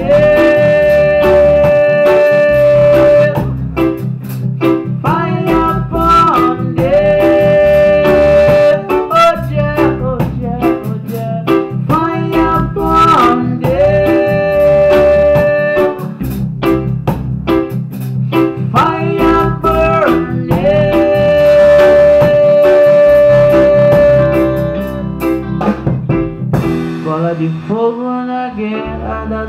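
Live band playing an instrumental passage on drums, electric guitar and keyboard, with long held lead notes of about three seconds coming back every few seconds over a steady beat. Near the end the cymbals drop out and the playing turns quieter and sparser.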